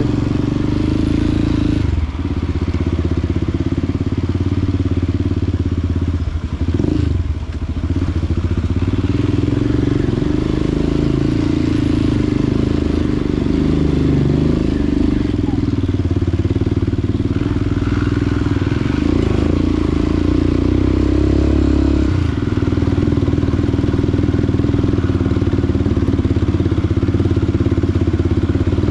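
Motorcycle engine running steadily under way. The engine note drops off briefly near the start, again a quarter of the way in, and once more about three quarters of the way through, as the throttle eases or the gears change.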